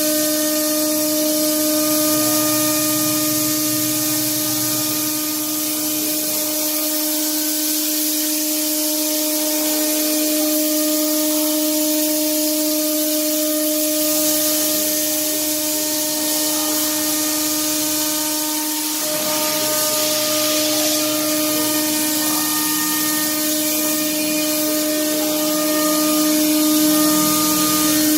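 Spindle of a 1325 CNC router running at constant speed while it carves wood: a steady whine over a continuous hiss of cutting.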